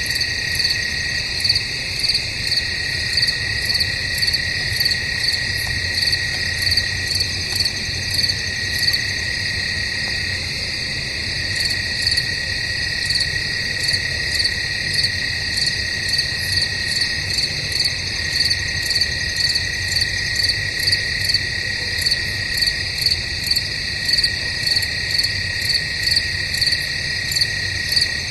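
Chorus of crickets chirping in woodland: a steady high trill with regular pulsing chirps over it, about two a second.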